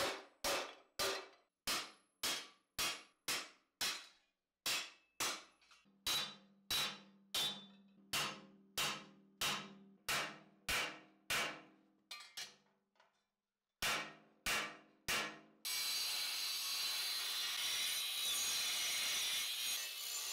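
Hammer blows on a steel helmet plate over an anvil, about two a second, the steel ringing after each blow. After a short pause and two more blows, an angle grinder starts grinding the steel helmet dome with a steady grinding noise for the last few seconds.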